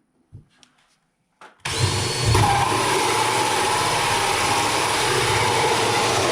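Electric drill starting a little under two seconds in and running steadily under load as it bores through the wall, with a steady whine over the cutting noise. A few light handling clicks come before it.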